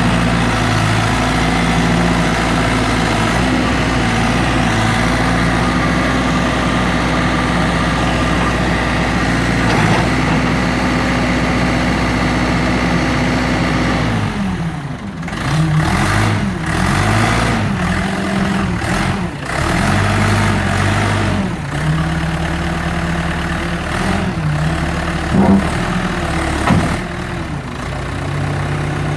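A heavy vehicle engine running steadily. About halfway through, its pitch starts rising and falling again and again as it is throttled up and down.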